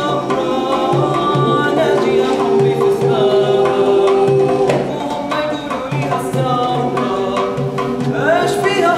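Male solo voice singing an Arabic song with a mixed choir, backed by a hand drum keeping a steady beat. The sung notes are long and slide in pitch, with a new phrase rising near the end.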